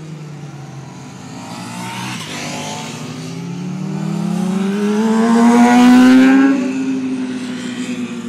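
Sport motorcycle engines racing on a cone course. One bike's engine note dips, then climbs steadily under acceleration and is loudest about six seconds in, before falling away. A second bike's engine is heard rising briefly around two to three seconds in.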